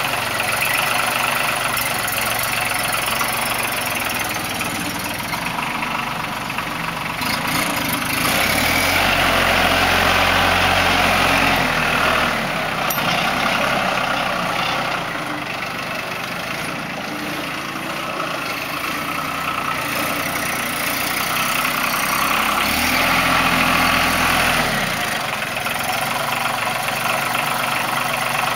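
Mahindra 3616 cab tractor's Mitsubishi diesel engine running as the tractor drives about, swelling louder twice for a few seconds each, about a third of the way in and again later.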